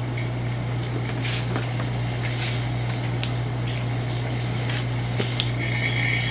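AC vacuum pump running with a steady low hum, the system pulled down to vacuum so the pump is no longer labouring. Scattered light clicks, and a high steady tone joins near the end.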